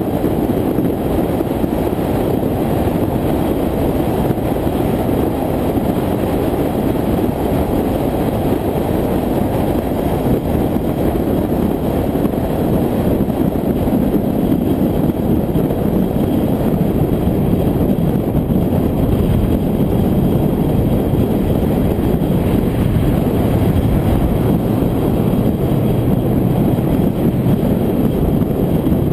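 Steady rush of wind and road noise from a vehicle cruising at highway speed, with wind buffeting the microphone. It holds an even, unchanging level throughout.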